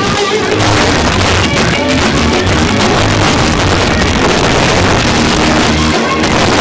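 Live rock band playing loudly, led by a Stratocaster-style electric guitar being strummed and picked, with a drum kit behind it.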